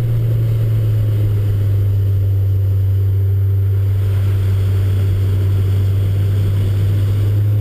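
Car engine droning steadily under way, heard from inside the cabin, its note easing slightly lower about a second in and then holding.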